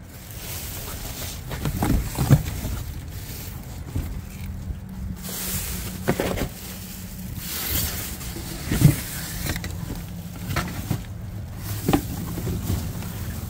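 A vehicle running with a steady low hum, with several knocks and thumps over it; the sharpest come about two seconds in and about nine seconds in.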